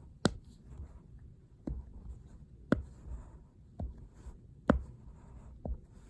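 Silicone Dimple Wobble fidget toy being pressed, its dimples popping: six sharp pops about a second apart, the loudest near the end.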